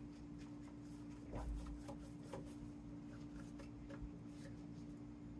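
Faint rubbing and soft light taps of a pastry brush spreading melted butter over phyllo dough, over a steady low hum.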